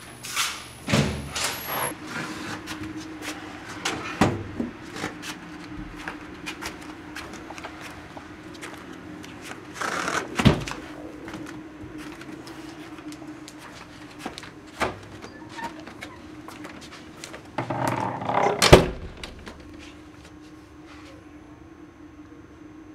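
Footsteps going down stairs, with irregular knocks and handling thumps from a handheld camera, over a steady low hum. The loudest thumps come about ten seconds in and again near nineteen seconds, and the knocking thins out over the last few seconds.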